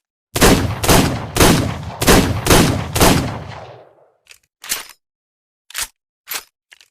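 Revolver sound effect: six shots fired in quick succession about half a second apart, their echo dying away, followed by a few short metallic clicks of the gun's action.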